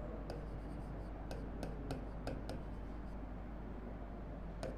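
Pen tip tapping and scraping on the screen of an interactive display board while a word is written by hand: a series of light, irregular ticks over a faint low hum.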